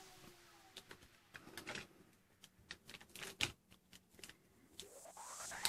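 Faint scattered clicks and taps of plastic Play-Doh tools and dough being handled on a plastic play mat, one tap louder about three and a half seconds in. A rising swish near the end leads into background music.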